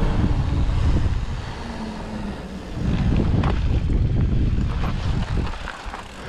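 Wind buffeting the action camera's microphone during a mountain-bike ride: a loud, uneven low rush that dips briefly about two and a half seconds in, with a few sharp clicks and knocks from the bike in the middle, easing off near the end.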